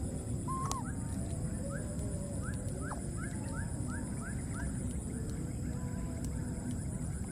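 Outdoor ambience: a steady low rumble under a thin high whine, with one arched call near the start and then a quick run of about ten short rising chirps, about three a second, from an animal.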